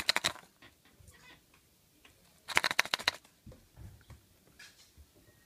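A plastic surprise egg shaken by hand, the toy and candy inside rattling in quick runs of clicks: at the start and again about two and a half seconds in, with a few light handling clicks after.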